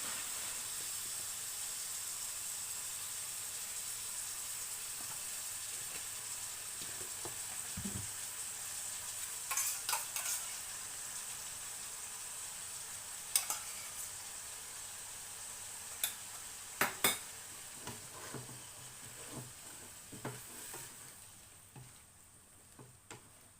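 Food frying in oil in a pan, with a steady sizzling hiss, while a utensil stirs it and clinks against the pan a few times. The sizzle dies down near the end.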